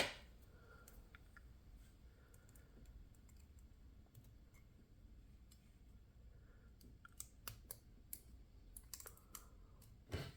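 Faint, scattered small clicks and taps of metal lock parts being handled as a Kwikset SmartKey Gen 3 lock is taken apart, coming more often in the last few seconds, with a slightly louder knock near the end.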